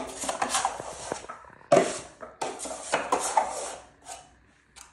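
Steel drywall finishing knife scraping wet setting-type joint compound across a ceiling, in several long strokes that stop about four seconds in.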